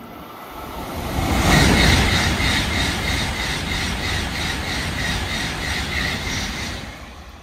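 Tokaido Shinkansen N700-series bullet train passing at speed. A rush of wheel and air noise builds over the first second or two and holds steady with an even pulse about three times a second as the cars go by, then fades near the end.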